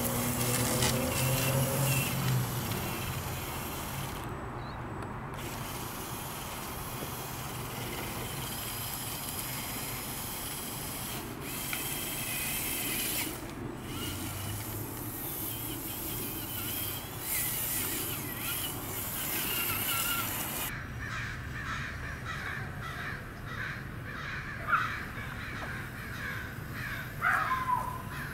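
Crows cawing, with the loudest calls near the end, over a steady rushing outdoor background.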